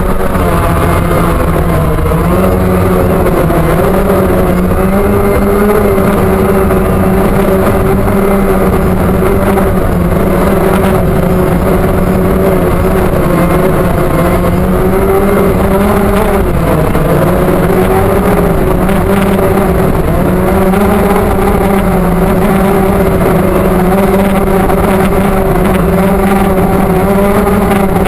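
DJI Phantom quadcopter's motors and propellers running, heard loud and close from a camera carried on the drone. The pitch settles after spinning up for take-off, then holds with small wavers as the drone climbs.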